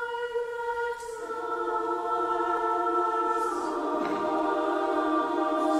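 Mixed choir singing slow, held chords; more voices join about a second in and again about three and a half seconds in, and the sound grows fuller and louder.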